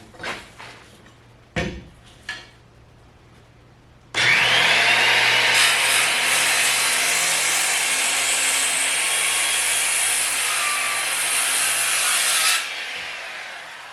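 A few light knocks, then a worm-drive circular saw starts about four seconds in, its whine rising as it spins up, and crosscuts the end of a 6x6 timber for about eight seconds before it is let off and winds down.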